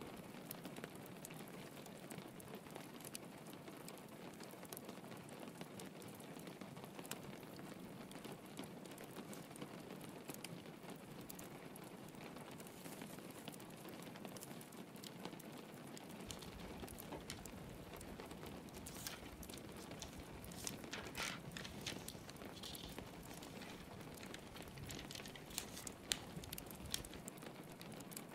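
Steady rain pattering with a log fire crackling in scattered sharp pops. A low rumble comes in just past halfway and drops out near the end.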